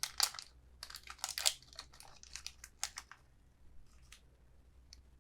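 Light rustling and small clicks from handling a small screw and parts for the NVMe mount on the motherboard, busy for about three seconds, then only a couple of faint ticks.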